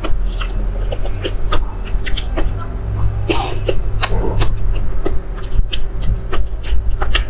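Close-miked eating of dumplings in chili oil: wet chewing with irregular sharp lip smacks and clicks. A steady low hum lies underneath.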